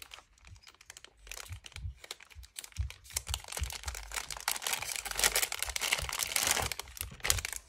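Clear plastic packaging bag crinkling and rustling as it is handled and an item is pulled out. It is irregular and sparse at first, and busiest and loudest in the second half.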